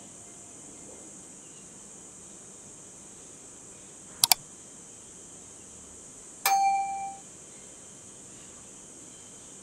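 Subscribe-button animation sound effects: a quick double mouse click about four seconds in, then a bell ding that rings briefly about two seconds later, over a steady high hiss.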